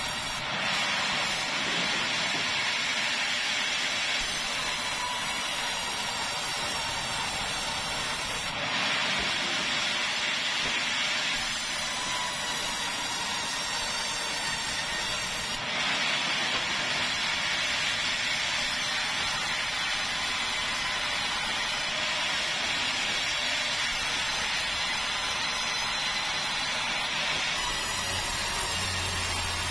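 Sawmill band saw cutting keruing timber: a steady, hissing whine of the blade running through the wood. The sawing gets louder as a fresh pass begins, three times: about a second in, about nine seconds in and about sixteen seconds in.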